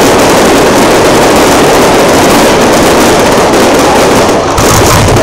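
Fireworks barrage, heard as one continuous loud wash of noise with no single bangs standing out; about four and a half seconds in, the deeper sound grows stronger.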